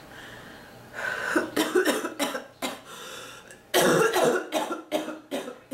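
A sick person in a coughing fit: a run of harsh coughs in two bouts, the second and loudest starting about four seconds in.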